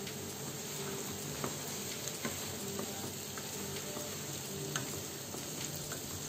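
Sliced mushrooms, cabbage, carrot and onion sizzling steadily in butter in a nonstick pan, stirred with a wooden spatula that gives a few light scrapes and taps against the pan.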